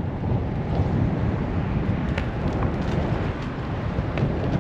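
Strong wind buffeting the microphone, a steady low rumble, with a few faint light clicks.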